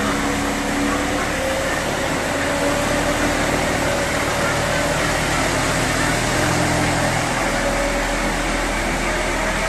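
Straw bedding spreader running, its hydraulically driven rotor shredding a round straw bale and blowing chopped straw out as a steady, loud mechanical noise.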